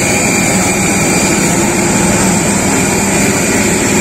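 A jet airliner's turbine running on the airport apron: a loud, steady roar with a constant high whine over it.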